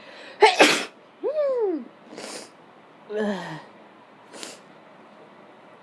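A person sneezes hard about half a second in, a sneeze brought on by sniffing pepper, followed by a short falling vocal sound. After that come a few shorter, breathy noises, one of them voiced and falling.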